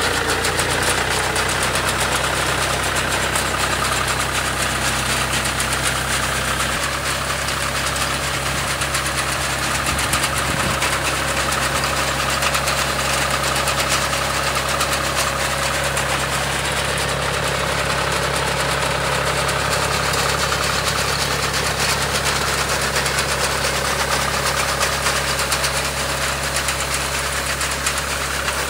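John Deere 5050E tractor's three-cylinder diesel engine running steadily under load while driving a tractor-mounted reaper cutting paddy; the engine note changes about seven seconds in.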